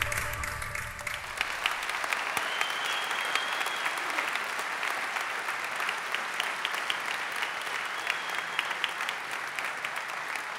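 A large audience applauding steadily, a dense patter of many hands clapping. The tail of a piece of music fades out in the first second or so.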